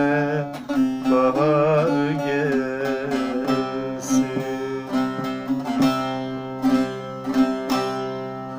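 Bağlama (long-necked Turkish saz) strummed and plucked in the closing bars of a folk song, with a wordless sung note wavering over it for the first few seconds. A run of final strums follows, and the sound fades out near the end.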